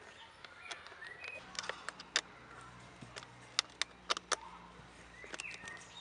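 Sharp, irregular metallic clicks and taps of a hand tool working a clip and hose clamp on a car's plastic air filter housing. A faint low hum runs underneath from about a second and a half in until near the end.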